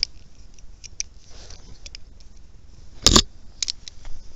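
A revolver being drawn and handled: scattered light clicks and rustles, a sharp knock about three seconds in, then a couple of quick metallic clicks.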